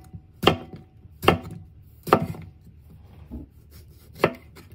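Chef's knife slicing a cucumber into rounds on a wooden cutting board: five sharp chops of the blade onto the board, about one a second, the fourth one fainter.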